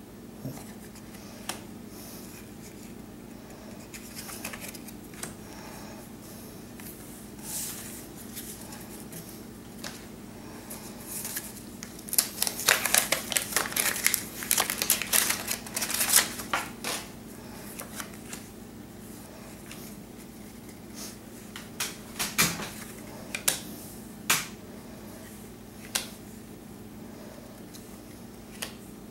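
Paper wrapper of a repacked wax pack of baseball cards crackling as it is torn open and handled, in a dense burst near the middle. Scattered sharp clicks of stiff cardboard cards being flipped through by hand come before and after, over a steady low hum.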